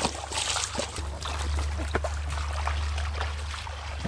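Wet splashing and slapping from live catfish moving in a plastic crate of water, busiest in the first second and thinning out after, over a steady low rumble.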